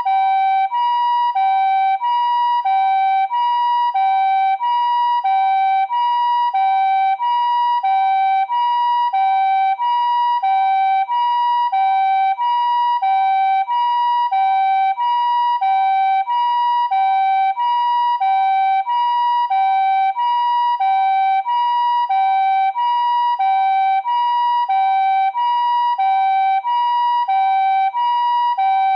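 Japanese ambulance siren sounding its two-tone 'pee-po' call. A higher and a lower tone alternate evenly, about one pair every 1.3 seconds, steady in pitch and loudness.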